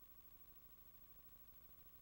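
Near silence: a faint, steady hiss and low hum with a thin steady tone, with no sound of the eruption itself.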